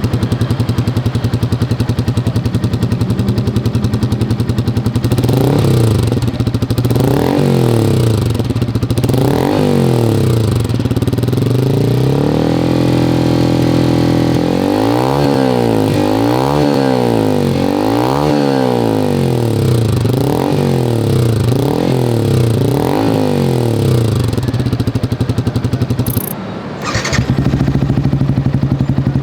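Single-cylinder automatic scooter engine running through an aftermarket EvoX STD exhaust with its dB killer fitted: idling, then a string of throttle blips, a held rev, and more quick blips before settling back to idle. Near the end the sound breaks off briefly and the idle resumes.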